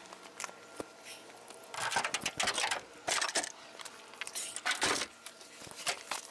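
Tools and parts being handled: a few light clicks, then bursts of rattling and clattering about two seconds in and again near five seconds.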